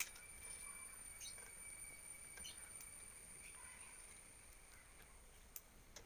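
Sharp snips of plastic cable-tie tails being cut off, one right at the start and another near the end, in near silence. A faint steady high-pitched tone and a few faint short chirps sit beneath them.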